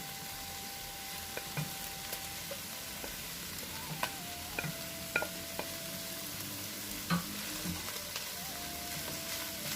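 Cuttlefish, onion and grated vegetables sizzling in oil in a pan as they are stirred. A utensil clicks against the pan several times, mostly in the middle stretch.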